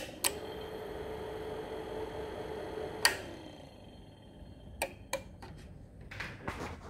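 Heathkit SB-200 linear amplifier with a soft-start relay board: two sharp clicks at switch-on, then a steady hum for about three seconds. A loud click comes next, after which the hum slides down in pitch and dies away, followed by a few lighter relay clicks.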